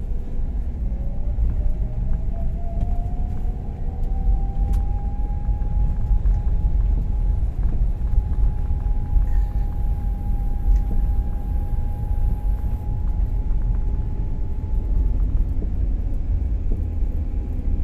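Car driving slowly, heard from inside the cabin: a steady low rumble of engine and tyres on a concrete road, with a faint whine that rises in pitch over the first few seconds and then holds steady.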